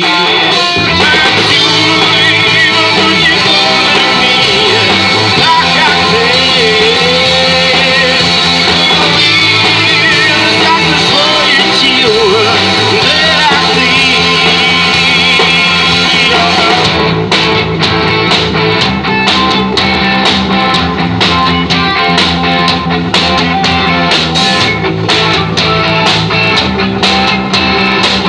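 Live rock band playing: amplified electric guitars and a drum kit, with a singer's voice over the first half. About two-thirds of the way in the singing drops out and a driving drum beat with crisp cymbal hits comes to the front.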